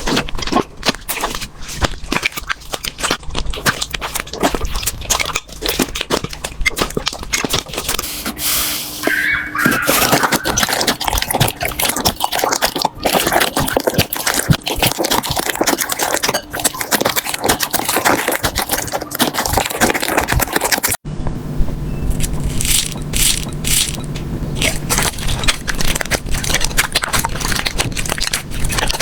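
Slime being squeezed and pressed by hand: a dense run of small crackles, pops and sticky scraping. About two-thirds of the way through, the sound abruptly changes to a different slime's crackling.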